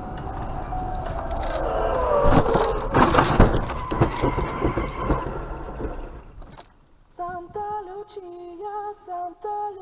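A car crash heard from a dashcam: a falling squeal, then a burst of crunching impacts about two to four seconds in as the swerving SUV strikes and spins. From about seven seconds a simple melody plays.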